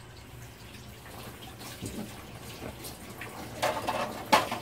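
Gas stove burner running with a steady rushing hiss and low hum under an empty wok while it heats, with a few light knocks near the end.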